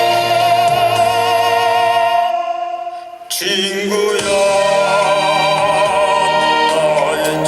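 A trot song with a tenor singing held notes with vibrato over a band backing track. The music briefly drops away about two and a half seconds in and comes back at full level.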